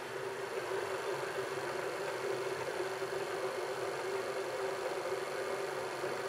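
Vertical milling machine running steadily with a drill bit in its spindle, not cutting: an even mechanical hum.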